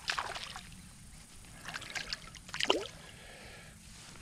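A small hooked fish splashing at the water's surface as it is drawn in on a fly line, in three short bursts, the last near the end the loudest.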